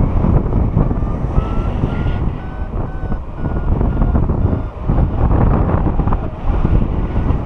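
Paragliding variometer sounding its climb tone: short electronic beeps about two a second that rise slightly in pitch, heard over heavy wind buffeting the microphone.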